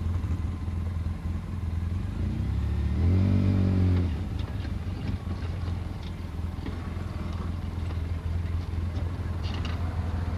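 Quad bike (ATV) engine running while riding a trail, revving up briefly about three seconds in and then easing off, with a few knocks and rattles from the ride later on.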